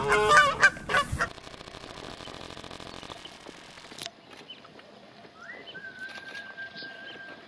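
Canada goose honking, a quick series of loud honks in the first second or so. Later comes a faint, thin whistle-like tone that rises and then holds steady for about two seconds.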